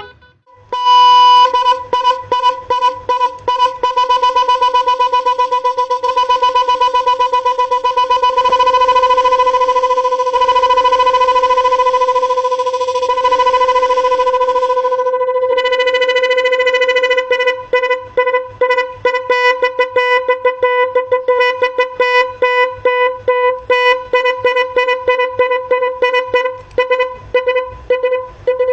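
12-volt electronic 'telolet' echo snail horn sounding its built-in tone patterns: a loud buzzy horn note with a fast stuttering echo, held for about fourteen seconds, then after a short break a different pattern of rapid repeated beeps.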